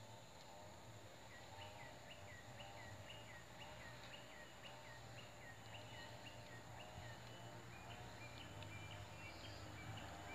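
Faint outdoor ambience of birds calling. One gives a low rising-falling note about once a second, while another sings a run of quick higher notes from about a second in until about seven seconds, then only a few scattered notes, all over a low steady hum.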